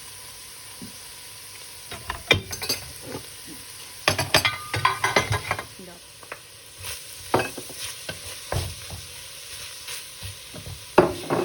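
Spoon scraping and clinking against a pan as leftover cooked beef mince is spooned out, in irregular clusters of scrapes and clicks.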